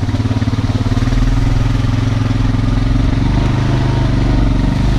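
Honda Rancher 420 ATV's single-cylinder four-stroke engine running at low, steady revs with an even throb.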